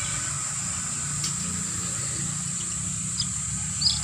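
Baby chick peeping: a few short high-pitched peeps, the loudest near the end, over a steady low hum and a faint high whine.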